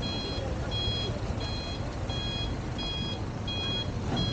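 A truck's reversing alarm beeping steadily, about one and a half beeps a second, over a low rumbling background.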